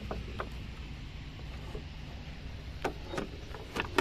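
Handling noise: a few sharp clicks and crackles over a low steady background, most of them in the second half.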